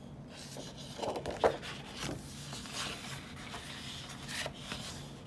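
Sheets of patterned scrapbook paper being handled and turned over, rustling and sliding against one another in irregular bursts, with one sharper rustle about a second and a half in.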